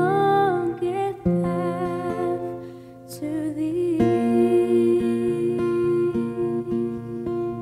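A woman sings a slow worship song to her own acoustic guitar, holding long notes with vibrato over strummed chords. The voice eases off around the middle, and the guitar chords ring on with steady strums.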